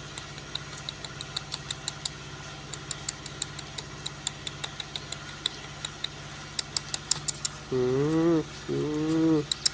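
A steady low engine hum, as of an engine idling, with many light irregular clicks over it; a voice sounds twice, briefly, near the end.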